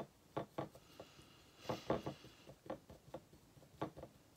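Water brush tapping and scraping in a small ceramic dish while mixing white gouache: a string of light, irregular clicks and taps.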